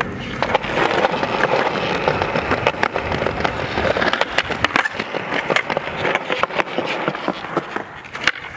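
Skateboard wheels rolling over stone plaza paving: a steady rumble broken by frequent sharp clacks.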